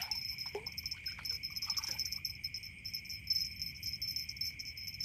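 A chorus of night insects such as crickets: a steady high trill with a faster, pulsing chirp above it. A few faint scuffs come in the first two seconds.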